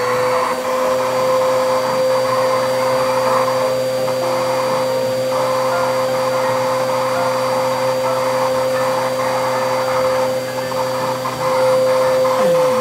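A vacuum cleaner's motor running with a steady whine. Near the end its pitch briefly drops and comes back up.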